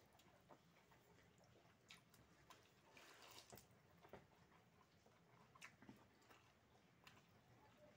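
Near silence with a few faint wet ticks and smacks: a hand scooping soaked rice out of water in a steel bowl, and chewing.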